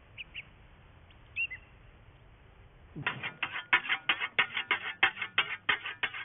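A few faint, short bird chirps. Then, about halfway through, a scythe blade is whetted: quick, even strokes of a whetstone along the steel, about four a second, each ringing briefly.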